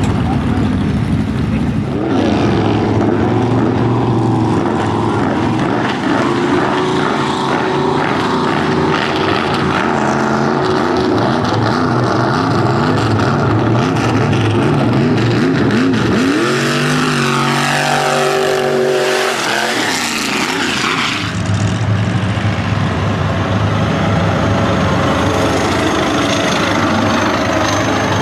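Mud-bogging truck's engine revving, loud throughout, with one marked climb and drop in pitch about seventeen to twenty seconds in.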